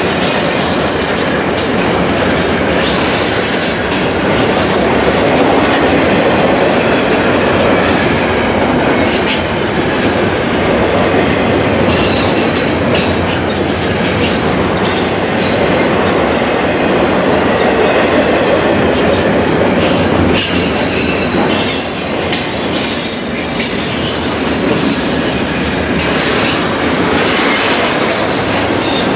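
Double-stack intermodal freight train rolling past: a steady rumble of steel wheels on the rails with clicks as the cars pass, and brief high-pitched wheel squeals now and then, more of them in the second half.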